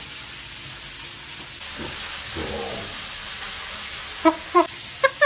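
Meat frying in a grill pan on the stove, a steady sizzling hiss. Near the end, two short, louder voice sounds cut through it.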